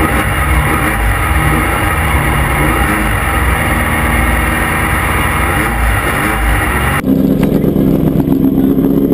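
Volkswagen-powered Class 5/1600 off-road race car's engine running at shifting revs under wind and road noise. About seven seconds in it changes suddenly to a steadier engine drone at constant revs.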